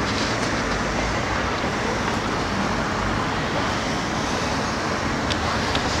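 Steady street traffic noise: an even rush of passing cars, with a few faint clicks.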